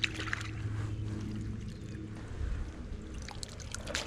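Water trickling and dripping in small splashes, over a steady low hum.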